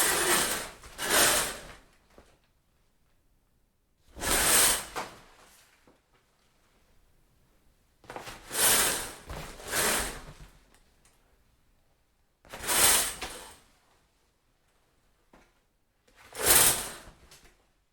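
Shower curtain pulled along its rod again and again: seven separate swishes of about a second each, two of them in quick pairs, with short pauses between.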